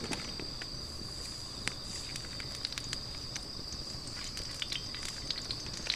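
Wood fire burning in a fire-pit stand, crackling with scattered sharp pops over a faint hiss, and a steady high-pitched whine running under it.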